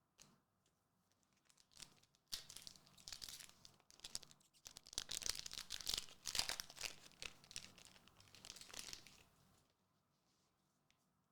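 Trading card booster pack wrapper being torn open and crinkled by hand. The crackly rustling starts about two seconds in, pauses briefly, then runs on for about five more seconds before stopping.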